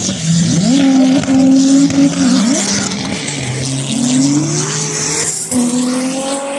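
Drag-racing cars launching and accelerating hard down the strip, engines climbing in pitch and dropping back at gear changes several times.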